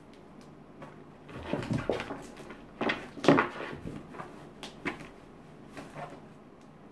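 Cats moving inside and against a fabric storage cube: the fabric rustles and scrapes and the box bumps in a few short bursts, loudest about three seconds in.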